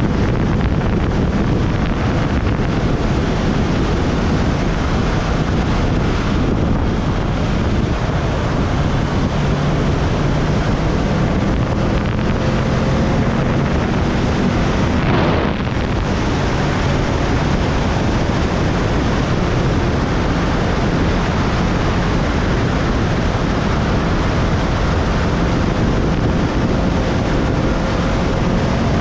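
Wind rushing over the microphone of a moving motorcycle, with the motorcycle's engine note underneath it. The engine note climbs slowly in pitch, breaks briefly about halfway through, then climbs again.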